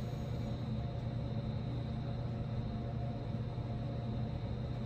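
Steady low room hum with a faint, thin high-pitched whine above it, unchanging throughout.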